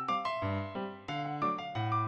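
Background music: a light piano tune of quick struck notes over low bass notes, with a brief break about halfway through.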